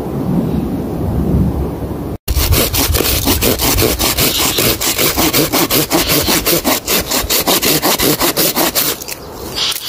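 A hand saw cutting through wood in fast, even back-and-forth strokes. The sawing starts after a brief dropout about two seconds in and eases off near the end.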